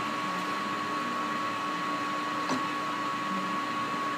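Fortune 1640G gap-bed engine lathe running under power with the cross feed engaged, moving the cross slide in toward the work. It runs steadily with a steady high tone, and there is one light click about two and a half seconds in.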